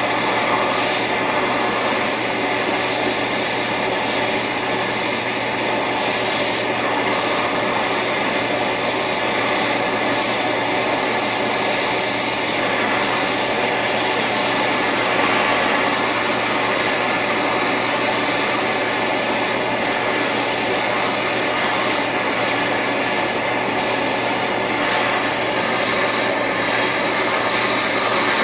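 Handheld gas torch flame hissing steadily as it heats a fluxed bandsaw blade joint to flow silver solder.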